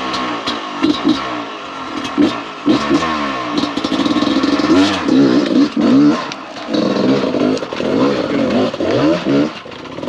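Dirt bike engine revving hard in repeated bursts, its pitch rising and falling again and again, with clattering knocks of the bike against rock as it is ridden up a steep rocky step.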